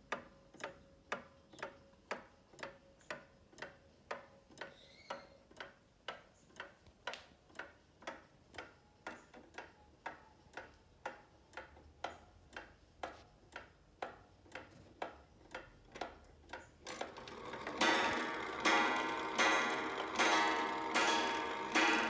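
Seth Thomas pendulum wall clock ticking steadily, about two ticks a second. About five seconds before the end, its coil gong begins striking the hour: strokes about three-quarters of a second apart, each ringing on over the ticking.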